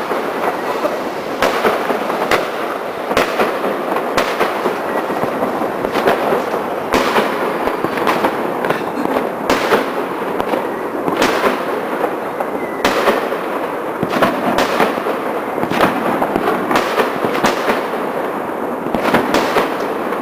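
Many fireworks and firecrackers going off at once: a dense, unbroken crackle with frequent sharp bangs at irregular intervals.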